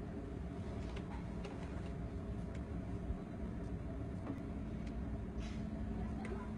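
Steady low background rumble of room noise with a few faint scattered clicks and taps; a steady low hum joins about four seconds in.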